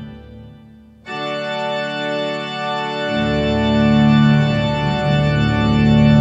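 Organ played from a three-manual console, in held chords. A chord dies away in the first second, a new full chord comes in sharply about a second in, and deep pedal notes join it about two seconds later.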